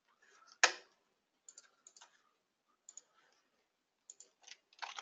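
Sparse computer keyboard and mouse clicks: one sharp, louder click under a second in, then light clicks, mostly in close pairs, about once a second.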